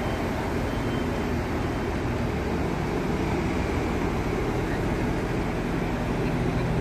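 Tadano ATF 160G-5 all-terrain crane's diesel engine running steadily with a low, even drone.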